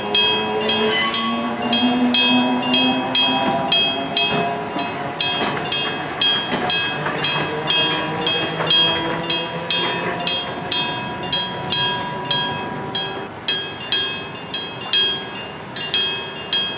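Electric gong-type level crossing bell ringing steadily, a little over two strikes a second, each strike ringing on. Under the bell for about the first ten seconds, a train runs through the crossing: lower sliding tones rise and fall.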